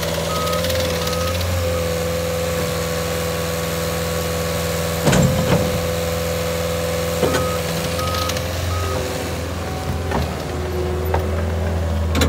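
Caterpillar 277C compact track loader's diesel engine running steadily with a whine that drops in pitch about nine seconds in, its backup alarm beeping at the start and again about seven seconds in as it reverses. A few loud knocks come about five seconds in.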